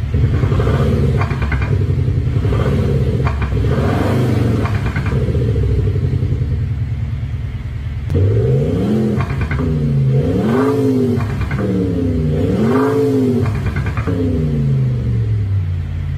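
An active exhaust sound generator with a sub-speaker fitted to a Mercedes-Benz E220d plays a synthesized Mercedes-AMG G63 V8 exhaust note. For the first half it is a deep rumbling idle with crackling pops. From about halfway it revs repeatedly, the pitch swinging up and down.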